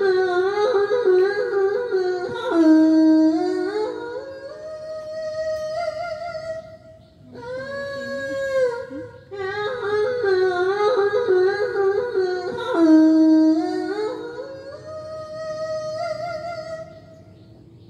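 A woman's solo singing voice in slow, heavily ornamented phrases with a wavering pitch. Two long phrases are separated by a short held phrase, and the voice fades out near the end.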